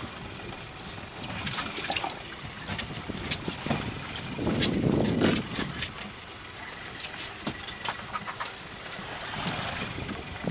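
Boat noise at sea: the twin Suzuki 175 outboard motors running low under a steady wash of water and wind, with scattered sharp clicks and a louder rush about halfway through.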